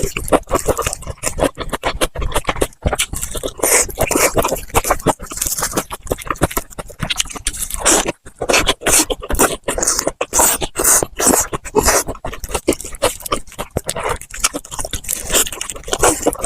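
Close-miked eating: crispy fried chicken and burger being bitten and chewed, with irregular sharp crunches of the fried coating and wet chewing sounds in between.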